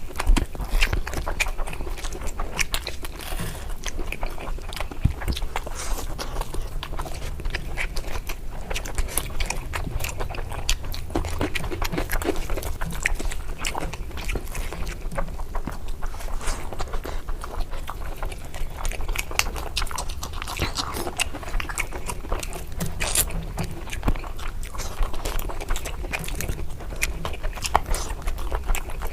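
Close-miked chewing and mouth sounds of someone eating curry, a steady run of small clicks and smacks.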